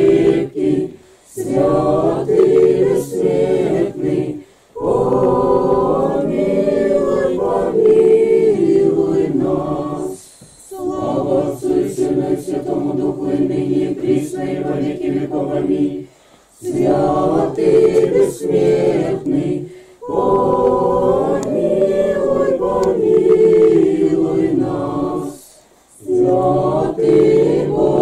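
A small mixed group of men, women and children singing an unaccompanied Orthodox church hymn together. They sing in phrases of a few seconds, with a brief pause for breath between each.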